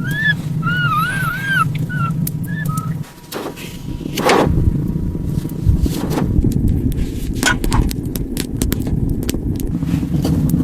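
A run of short, arched, chirping animal calls over a steady low rushing noise. The noise cuts out sharply about three seconds in, then comes back with scattered knocks and clicks.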